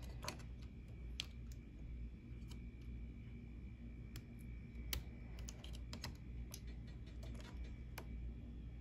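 Irregular light clicks and taps from hands fitting the reverse-shifter servo linkage into a nitro RC truck's chassis, small plastic and metal parts knocking as they are seated.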